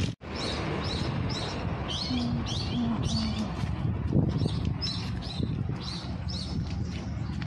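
Small birds chirping over and over in short high notes, about two or three a second. A dove coos three short low notes near the middle, over a steady low background hum.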